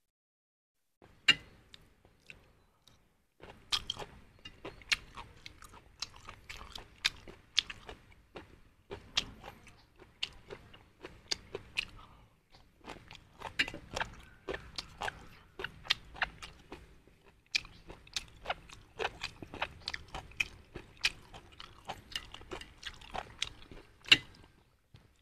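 A man chewing a mouthful of goat offal close to the microphone: irregular wet smacks and crunchy clicks of chewing. A few sharper clicks stand out, about a second in and near the end.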